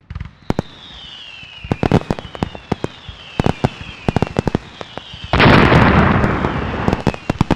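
Fireworks: a string of sharp bangs and pops, with several whistles that fall in pitch, and one big burst about five seconds in whose crackle dies away over about two seconds.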